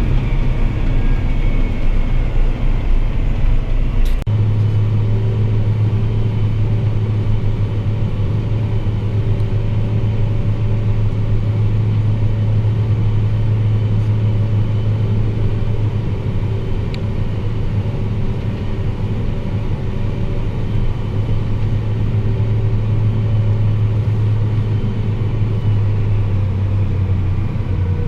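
Farm tractor engine running steadily under load, heard from the cab. About four seconds in there is a click and the engine note changes abruptly, then holds steady.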